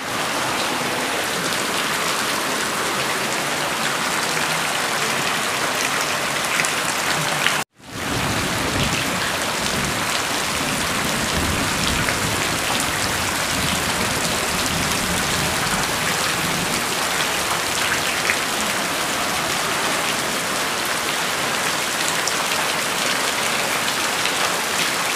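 Steady rain falling, an even dense hiss, with a brief dropout about eight seconds in.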